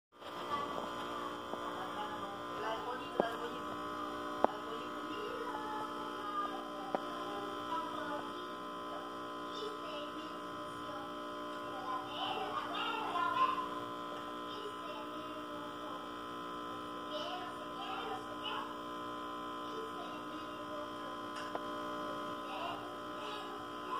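Steady electrical mains hum made of many steady tones. It is joined by three sharp clicks in the first seven seconds and faint voices about halfway through.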